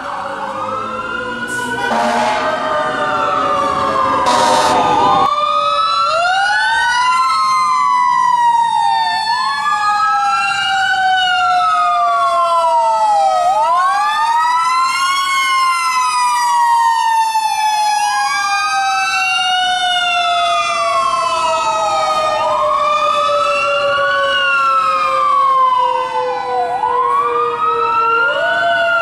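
Fire truck sirens: an electronic wail rising and falling about every four seconds over a mechanical Federal Q siren slowly winding down in pitch, spun up again briefly about halfway. Loud air horn blasts sound between about two and five seconds in.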